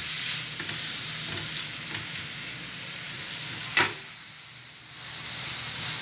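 Sliced white onions sizzling in a hot metal pan as they are stirred, close to done. A sharp metal clink comes about four seconds in, and the sizzling dies down for a moment after it before picking up again.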